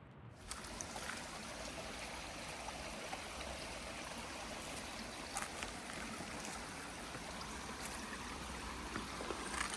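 Stream of running water, a steady even rush that starts suddenly less than half a second in.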